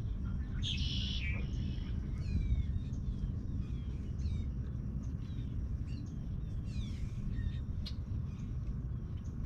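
Birds chirping and calling, many short falling chirps with one louder call about a second in, over a steady low rumble.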